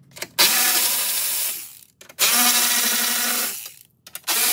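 Cordless electric ratchet running in three bursts of about a second and a half each, backing fender bolts out, with brief clicks between the runs.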